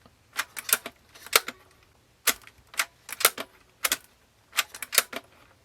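Sharp plastic clicks and taps from handling the Sony TC-WE305 cassette deck's mechanism and controls, about nine clicks at irregular spacing.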